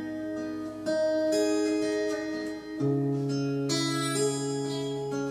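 Acoustic guitar playing a slow instrumental passage with ringing, sustained chords. The chord changes about a second in, and again near three seconds in, where a low bass note is added and held.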